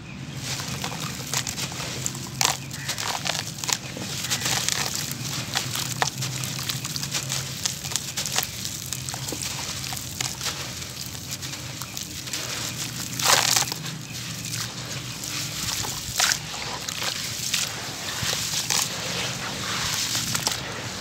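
Hands crumbling a wet, gritty cement slab, with continuous crunching and crackling of grit and several sharper crunches as chunks break off, the loudest about halfway through. Crumbs and clumps slosh and patter into shallow water in a basin.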